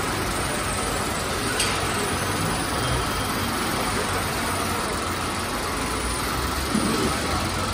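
Steady background noise of a large factory assembly hall, a constant machinery hum and hiss, with a faint click about one and a half seconds in and a light knock near the end.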